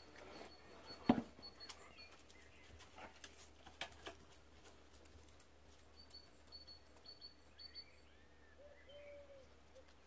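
Faint birdsong: short repeated high chirps and a few small calls. A single sharp click about a second in is the loudest sound, with a couple of softer clicks later.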